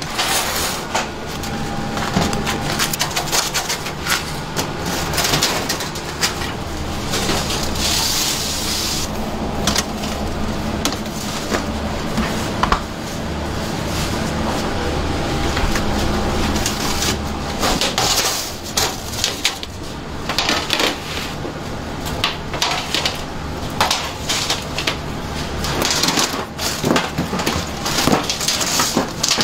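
Kitchen handling noise: crusty baked baguettes knocking and rubbing against each other and against aluminium trays as they are gathered by hand, many small knocks and clatters over a steady low hum.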